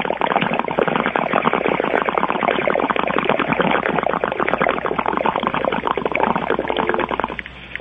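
A 'bong hit' sound effect played on air: a dense, crackling, distorted noise with a synthesizer-like edge, fading out near the end.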